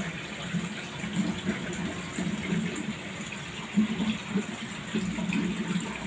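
Water running and bubbling steadily, with an irregular low churning: the circulating water of an aquarium tank.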